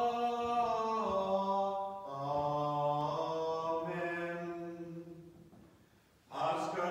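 Byzantine liturgical chant sung by men's voices: long held notes that drop to a lower pitch about two seconds in and fade away. A new sung phrase starts sharply near the end.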